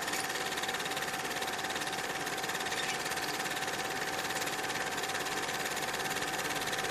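A steady mechanical whirr with a fast, even rattle and a faint whine, unchanging throughout.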